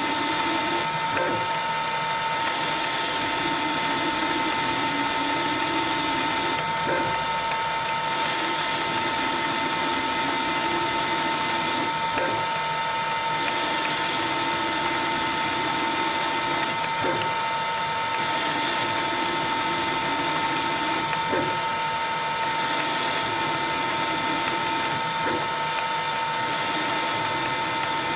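CNC-converted Myford ML7 lathe running: a steady mechanical whine from its motors and gears, with a pattern that repeats every four to five seconds, each cycle starting with a short click.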